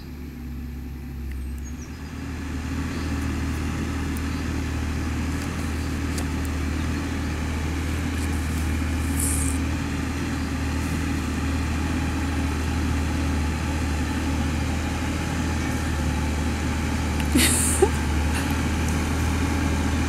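Massey Ferguson 6465 tractor's diesel engine running steadily under load as it pulls a plough through stubble, growing louder over the first two seconds and then holding steady. A brief sharp sound near the end.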